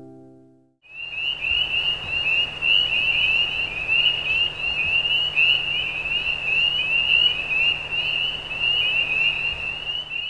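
A frog chorus: many overlapping short, high-pitched peeps, each rising in pitch, starting about a second in and going on without a break, over a low steady hum.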